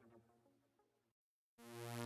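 Near silence between two background music tracks. The faint tail of one track dies away into a brief gap of total silence, then the next track fades in with sustained electronic notes near the end.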